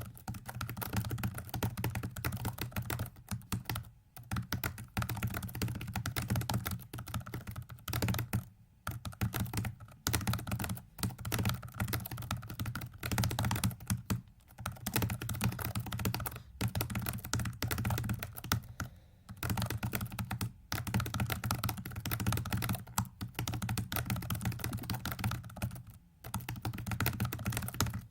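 Rapid computer-keyboard keypresses in dense runs, broken by short pauses every few seconds, as moves are keyed into a virtual 4x4x4x4 hypercube puzzle during a speedsolve.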